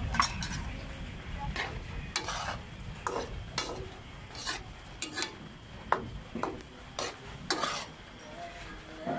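A utensil stirring and scraping around a wok of squid adobo cooking in its sauce, in irregular strokes about one every half second, over a sizzling, bubbling hiss.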